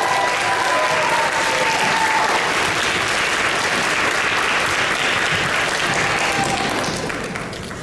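Audience applauding, with a long, high held cheer over the clapping in the first two seconds; the applause fades out near the end.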